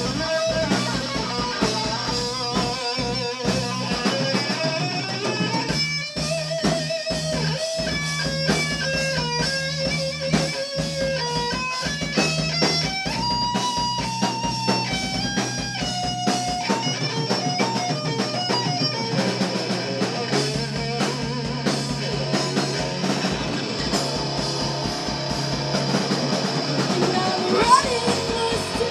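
A rock band playing an instrumental passage: an electric guitar through a Peavey amplifier picks a stepping line of single notes over drums and a low sustained part.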